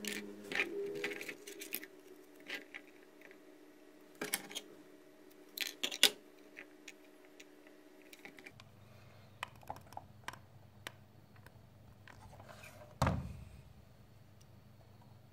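Light clicks and taps of wooden ice-cream sticks and a plastic straw being handled and set on a table, with one dull thump a couple of seconds before the end.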